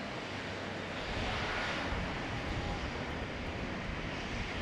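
Boeing 737-800's CFM56 jet engines running steadily, heard as an even rushing noise with a faint high whine.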